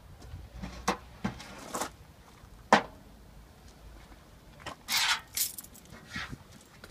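Handling knocks and scrapes as a chainsaw with its engine off is shifted about on a steel bench top. There are a few light knocks, one sharp knock about a third of the way in, and a brief scraping run a little over two-thirds through.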